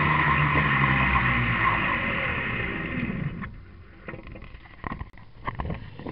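Zipwire trolley pulley running along the wire with a steady whir, its pitch falling as it slows. It stops a little over three seconds in, followed by a few light clicks and knocks.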